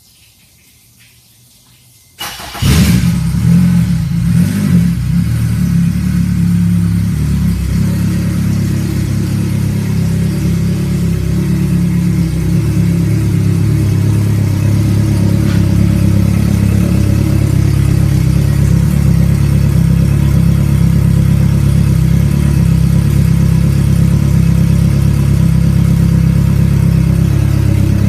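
Selva 115 XSR Tarpon four-stroke outboard starting about two seconds in, catching at once and flaring briefly, then running steadily at idle with its cowling off.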